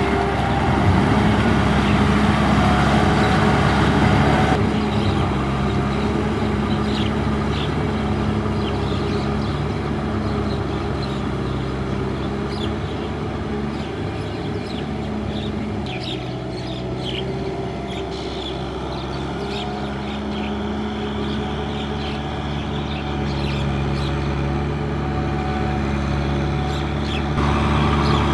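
Farm tractor's diesel engine running steadily, its pitch and sound changing abruptly a few times.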